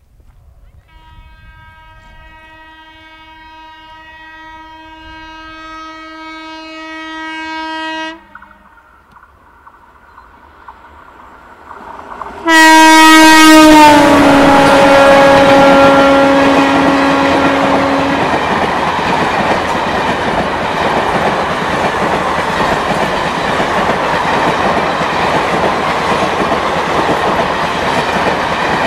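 WAP-4 electric locomotive's horn sounding a long blast that grows louder as the train approaches, then breaking off. A second, much louder blast comes as the locomotive passes close by, its pitch dropping as it goes. It is followed by the steady rushing and clattering of the express's coaches going past on the rails.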